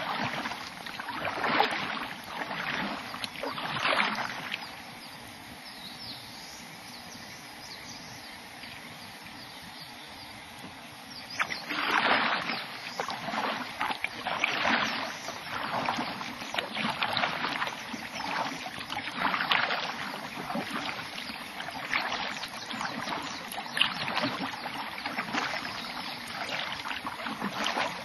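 Kayak paddle strokes splashing and dripping in the water, about one stroke a second, stopping for several seconds of quiet glide in the middle before the strokes start again.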